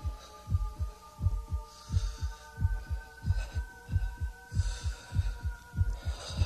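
Heartbeat sound effect: a steady lub-dub double thump about one and a half times a second, over a steady electronic hum of held tones, as part of an intro soundtrack.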